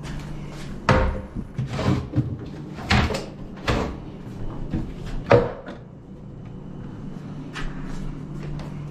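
Kitchen cabinet drawers and doors being pulled open and knocked shut: a run of wooden knocks and clatters, the loudest about five seconds in, then only an odd knock, over a steady low hum.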